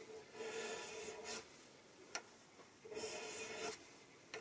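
Hand file rasping across a brass nut blank clamped in a vise: two strokes about a second long each, with a light tick or two between them.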